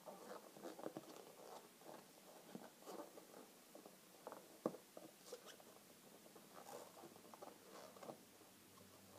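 Faint rubbing and squeaking of inflated latex balloons, 260 modelling balloons and a small round balloon, being handled and twisted by hand, in irregular short scrapes with a sharper click about four and a half seconds in.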